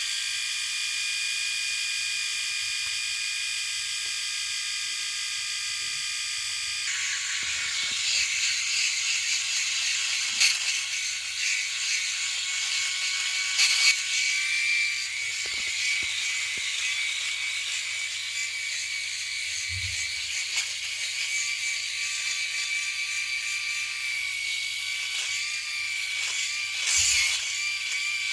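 Electric shaver running with a steady high-pitched buzz and a low hum. About seven seconds in the sound turns rougher and less even, with a few sharp clicks scattered through it.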